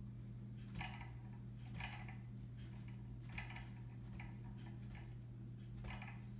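Hair being hand-stripped from a West Highland white terrier's leg coat: short, dry plucking strokes of hair pulled out, at an uneven pace of about one a second, over a steady low hum.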